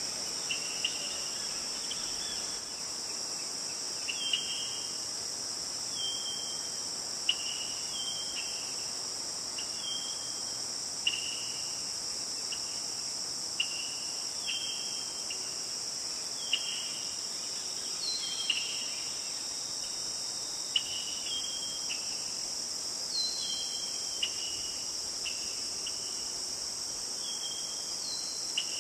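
Steady high-pitched insect chorus droning throughout, with short falling chirps repeated every second or two over it.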